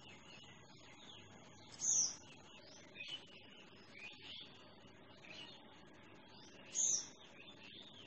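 Bulbul chirping: two loud, sharp high calls about five seconds apart, with softer short chirps between them.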